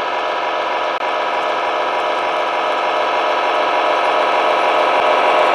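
Simulated diesel truck engine sound from the Tamiya Globe Liner's MFC-01 sound unit, playing through the model's speaker at a steady low speed and growing slowly louder as the truck drives closer.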